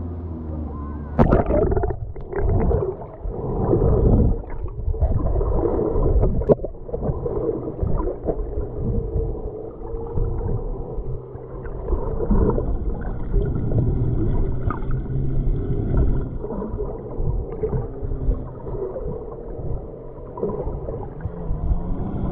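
Camera plunges under the lake surface with a splash about a second in, then muffled underwater bubbling and churning water from a snorkeler swimming.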